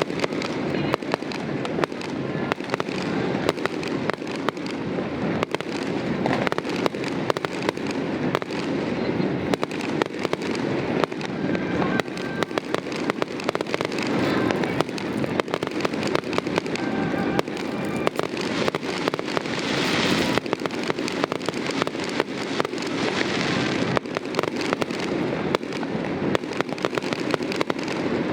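Fireworks going off in a dense, continuous barrage: many bangs and crackles overlapping with no break.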